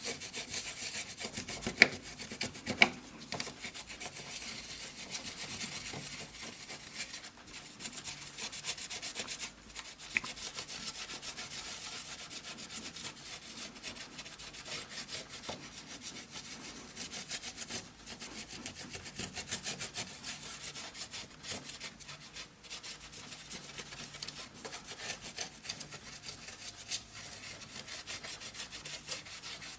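A cotton pad rubbed quickly back and forth over the bare GPU solder pads of a PlayStation 3 motherboard during reballing, a continuous scratchy rubbing of many rapid strokes. Two sharp clicks come about two and three seconds in.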